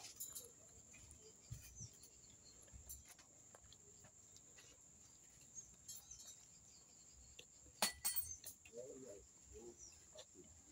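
Quiet eating sounds: scattered soft clicks and a few sharper clinks of chewing and of food being handled at a plate, under a faint steady high whine. A brief faint vocal sound comes near the end.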